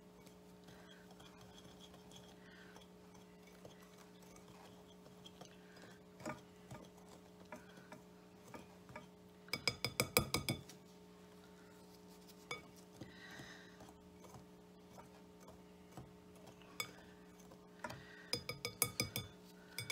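Wire whisk stirring dry bath-bomb powder in a bowl, its wires clinking rapidly against the bowl's side in two quick runs, about halfway through and again near the end, with scattered single taps between. A steady low hum runs underneath.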